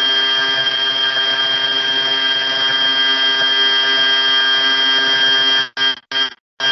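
Loud, steady buzzing tone with many overtones, coming through the video call from a participant's unmuted microphone. It breaks into short chopped bursts near the end.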